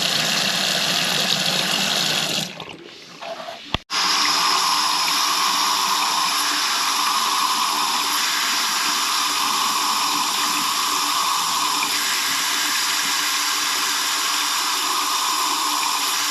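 Hot-water faucet running wide open, water pouring steadily into the sink as air is bled out of the just-refilled water heater tank. The flow sound drops away briefly about three seconds in and comes back after a click.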